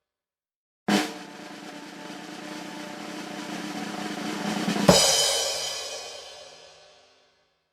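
Snare drum roll that starts on an accented hit about a second in, swells steadily louder for about four seconds, and ends on a loud final crash that rings out and fades over about two seconds.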